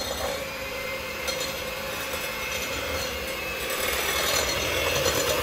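Handheld electric mixer spinning up, then running steadily with a constant motor whine as its beaters whip egg yolks and sugar in a glass bowl; it slowly grows louder.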